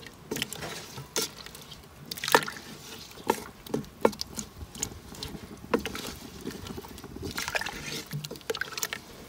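Wooden spatula stirring a thick, simmering pla ra (fermented fish sauce) with chunks of pineapple in a stainless steel pot: wet sloshing with irregular taps and clicks of the spatula against the pot, about one or two a second.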